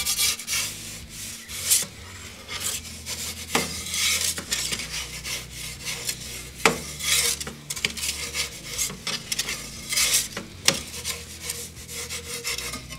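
Slotted metal turning peel scraping and sliding over the stone of an Ooni Karu 12G pizza oven as a pizza is turned: a series of rasping scrapes with a few sharp metal clicks.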